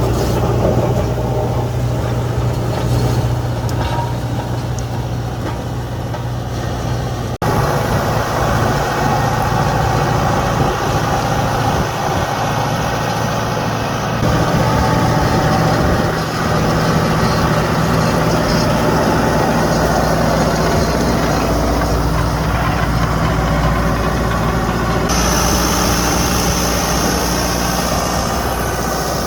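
Preet 90 HP tractor's diesel engine running steadily, with a continuous low hum. The sound jumps abruptly about seven seconds in, and a high hiss joins it a few seconds before the end.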